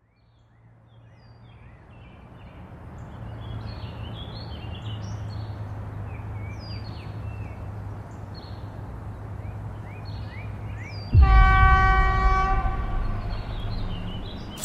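Train horn sounding one long blast about eleven seconds in. Beneath it is a low steady rumble that fades in from silence, with short high chirps above it.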